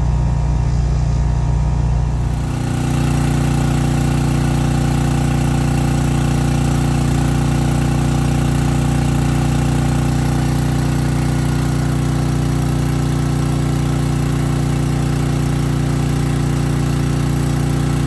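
Craftsman 6300-watt portable generator running steadily while it powers a 3-ton central air conditioner. For the first two seconds or so the air conditioner's outdoor unit hums low, then the generator's engine drone takes over up close.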